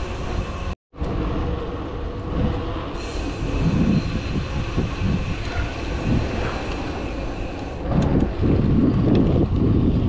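Riding noise of a moving bicycle: wind rumbling on the microphone over tyre and drivetrain noise, with faint steady whines in the middle. The sound cuts out for a moment just under a second in, and the wind rumble grows stronger about eight seconds in.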